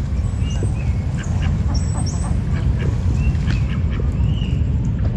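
Birds calling: duck-like quacks with short high chirps, over a steady low rumble.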